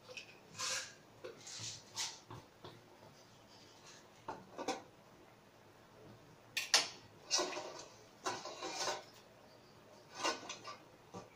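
Scattered clatters and knocks of kitchen containers being handled: spice jars and a bottle picked up and set down on the counter, and a hand rummaging in a metal bowl. The loudest is a sharp knock a little past halfway.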